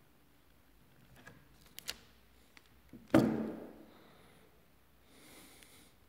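A sharp knock about three seconds in, ringing briefly as it dies away, after a few faint clicks.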